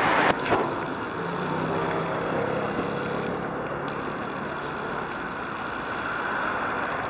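Road traffic on a busy city street: a steady rush of passing cars, with one vehicle's engine humming low from about a second in until about five seconds.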